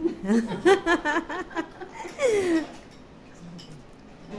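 A person laughing in a quick run of short bursts during the first second and a half, then a short word with a falling pitch about two seconds in.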